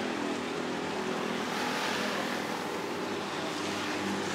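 Steady rushing background noise at a martabak street stall while batter is poured and spread in a thick cast-iron pan.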